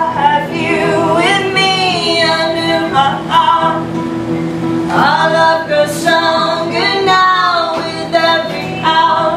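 Two women singing together over two acoustic guitars strummed and picked: two sung phrases, with a short guitar-only gap about halfway through.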